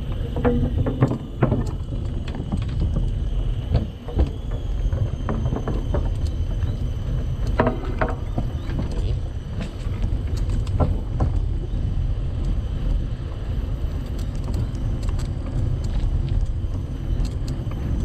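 Bicycle rolling over a wooden boardwalk, rattling with scattered knocks as the tyres cross the planks, under a steady rumble of wind on the microphone.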